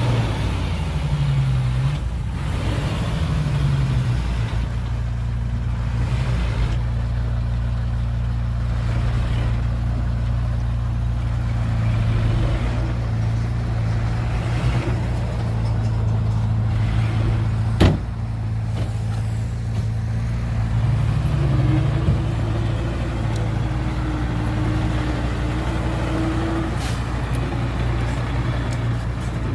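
Heavy earth-moving machine's diesel engine running steadily under load. It revs up briefly near the start and again later, with a single sharp knock about two-thirds of the way through and a higher whine for several seconds near the end.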